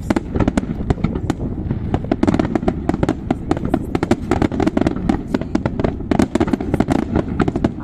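Fireworks display: a dense, rapid barrage of aerial shell bursts and crackle, bangs following each other several times a second over a low rumble.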